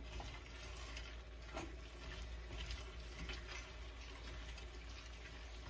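Faint stirring of cream of chicken soup and frozen mixed vegetables in a pan, a spoon scraping softly with a few light knocks.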